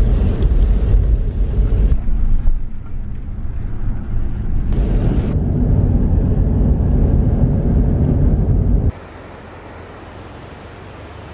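Car driving on a wet road, heard from inside the cabin as a loud, steady low rumble of road and tyre noise. About nine seconds in it cuts to a much quieter, steady rushing of a river running high over rapids.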